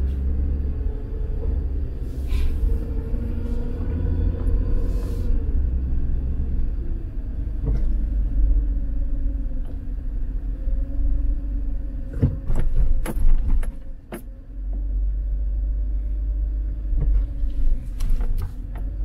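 Car driving slowly, heard from inside the cabin: a steady low rumble of engine and road. A few sharp knocks come about two-thirds of the way through and again near the end.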